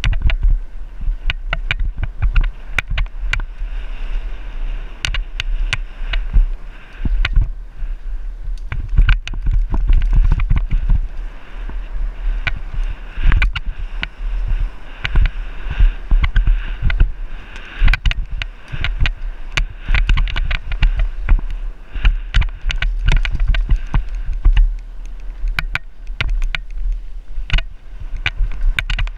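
Downhill mountain bike running fast over a dirt trail, heard through a bike-mounted action camera: steady low wind rumble on the microphone and tyre noise on dirt and loose stones, broken by frequent sharp rattles and clacks from the bike over bumps.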